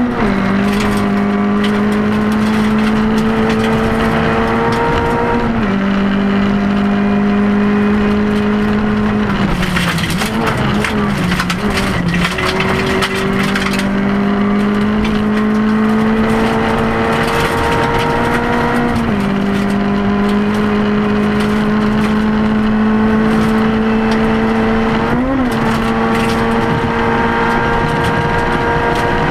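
Rally car engine heard from inside the cabin, driven hard on gravel: the note climbs steadily through the revs and drops sharply at each upshift, about half a second in, near 6 s and about two-thirds of the way through. Roughly a third of the way in the engine note wavers and dips as the driver comes off the throttle, and a brief rev blip comes near the end, all over a steady hiss and rattle of gravel under the car.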